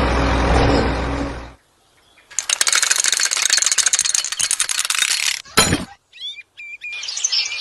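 A vehicle engine runs with a low hum and then cuts off about a second and a half in. After a short pause comes a few seconds of dense, rapid clattering of small hard pieces and a short burst of noise. Near the end, birds chirp in short rising and falling calls.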